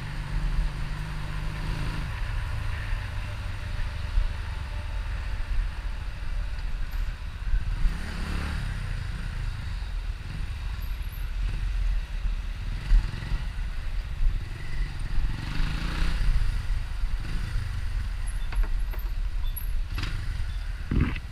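Motorcycle engine running at low speed during slow riding, heard from the rider's position, with a couple of brief swells in level.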